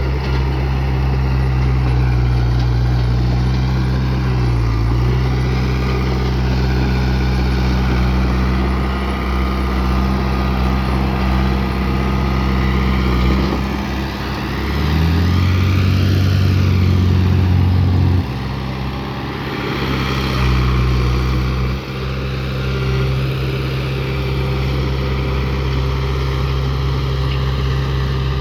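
Bulldozer's diesel engine running under load, its pitch dipping briefly about five seconds in, then rising and getting louder for a few seconds past the middle before dropping back abruptly.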